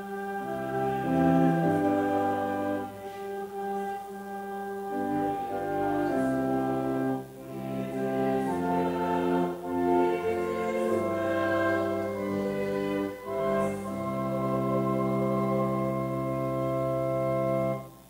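Organ music playing slow, held chords that change every second or two, stopping abruptly at the end.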